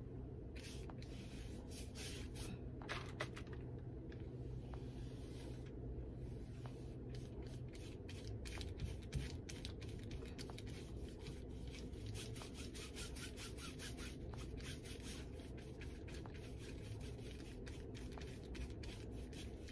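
Paintbrush stroking acrylic paint onto canvas paper: faint, scratchy rubbing strokes, a few at first, then quick repeated strokes in runs.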